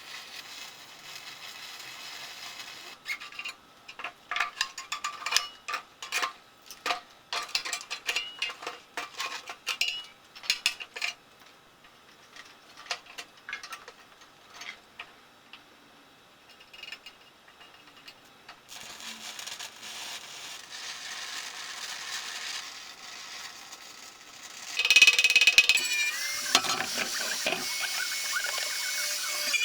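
Metal-on-metal clinks and knocks of tools and steel tubing being handled, many in quick succession at first. Near the end a louder run of noise comes in, with a pitch that falls steeply as it winds down.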